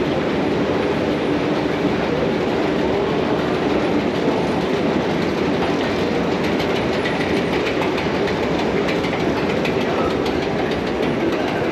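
Metro escalator running: a steady mechanical rumble with rapid clicking of the steps, the clicking coming through more clearly in the second half.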